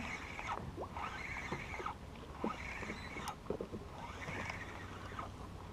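Spinning fishing reel being cranked, its gears whirring faintly in short spells, with brief thin squeaks over a low steady hum.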